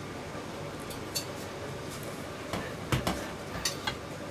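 Metal kitchen utensils clinking and knocking on a wooden cutting board: a handful of separate short knocks, the loudest about three seconds in.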